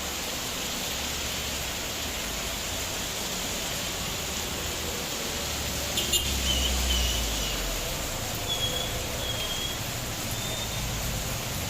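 Steady hiss of heavy rain. About six seconds in a low rumble swells and fades, and short high chirps sound a few times near the end.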